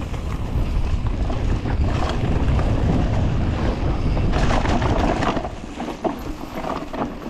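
Wind buffeting the microphone of a camera on a moving mountain bike, with a burst of rattling from the bike over rough ground about four and a half seconds in. The wind rumble eases after about six seconds.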